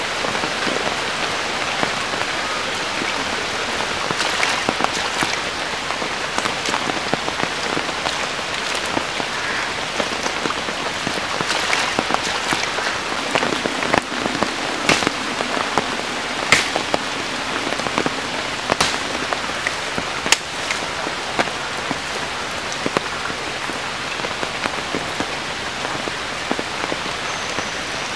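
Steady rain falling on puddled water and wet mud, a dense patter of drops, with a few sharper knocks through the middle.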